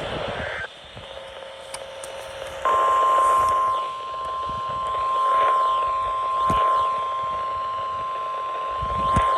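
NOAA Weather Radio warning alarm tone: a steady 1050 Hz tone that comes on about three seconds in and holds, heard over a radio receiver with crackling static and swells in level.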